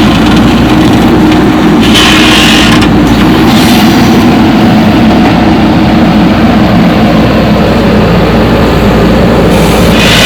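Heavy diesel engine running steadily under load, with a couple of brief hissy surges.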